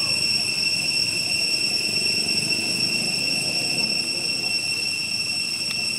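Steady high-pitched whine with several overtones, held unbroken over a low, even rumble of outdoor noise; a faint click near the end.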